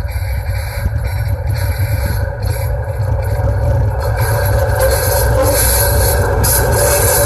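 DF7G-C diesel-electric locomotive approaching with an intermodal train, its engine and rail noise growing louder from about four seconds in over a steady low rumble.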